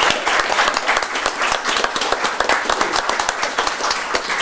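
Applause: a roomful of people clapping hands, dense and steady.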